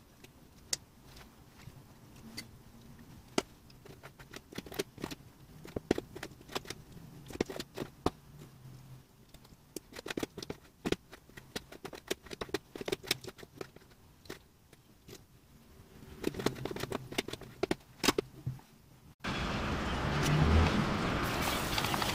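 Chef's knife tapping and clicking on a plastic cutting board in irregular strokes as raw cuttlefish is chopped. About three-quarters of the way through, this gives way suddenly to a steady sizzle of chopped onion going into hot olive oil in a frying pan.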